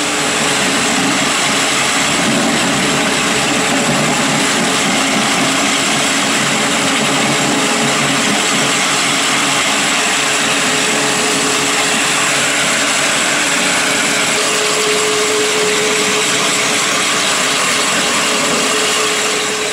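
EDCO electric floor grinder with diamond-impregnated metal inserts running and grinding an old coating off a concrete floor, with its dust-collection vacuum running. It makes a steady motor hum over a dense grinding hiss.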